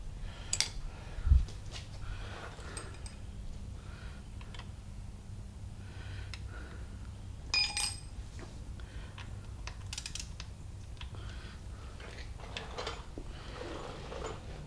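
Scattered clicks and clinks of hand tools and metal engine parts being handled during an engine teardown, with a dull thump early on and one ringing metallic clink near the middle, over a steady low hum.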